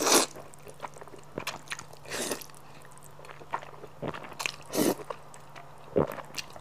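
A person slurping up mouthfuls of spicy squid mixed noodles, close to a clip-on microphone: loud slurps at the start, about two seconds in and near five seconds in, with wet chewing clicks in between.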